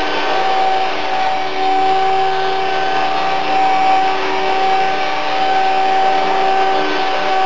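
Electric RC helicopter (Esky 005 CP2 with a King shaft-drive tail, 3100kv brushless motor and 245 mm carbon main blades) in a hover: a steady motor and drivetrain whine over the buzz of the rotor blades, gently rising and dipping in loudness.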